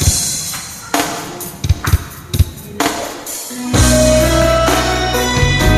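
Song intro: a drum fill of separate kick, snare and cymbal hits, then about four seconds in the full backing comes in with a steady bass and held chords.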